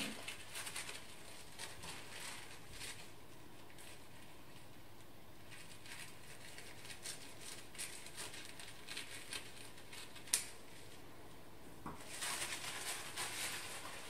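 Scissors snipping through thin tissue paper, with light paper rustling as the offcut is trimmed away. A single sharp click comes about ten seconds in, and a denser spell of paper rustling follows near the end.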